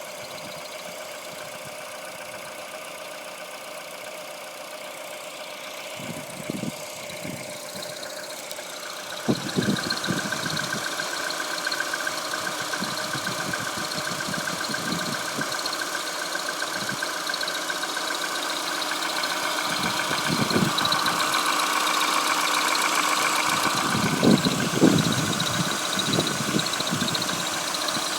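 Peugeot 308 1.6 EP6 engine running cold with a steady whistle over it, the fault the owner is showing; the whistle and engine get louder about a third of the way in. A few dull low thumps come and go, the strongest near the end.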